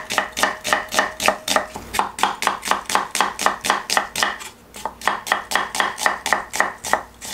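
Chef's knife slicing a red onion thinly on a thick round wooden chopping block: a steady run of crisp chops, about four a second, with a brief pause about four and a half seconds in.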